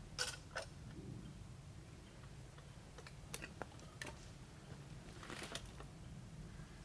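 Faint, irregular sharp clicks and light knocks, about seven spread unevenly, over a low steady rumble.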